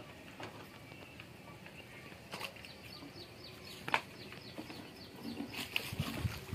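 A bird calling in a quick run of short, falling high notes about two and a half seconds in, and a sharp click near four seconds. Near the end a snakehead strikes the bait at the surface with a splashing thump.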